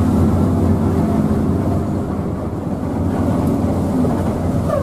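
Steady low rumble of a coach bus's engine and road noise, heard inside the cabin while the bus drives on a wet road.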